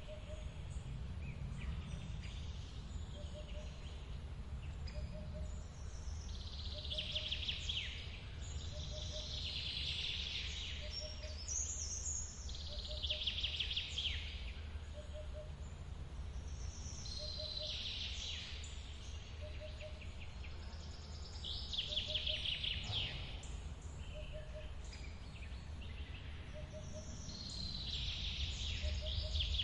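A steady low rush of forest water under birds singing quick trilling phrases every three to five seconds. A short, soft low note repeats about every second and a half.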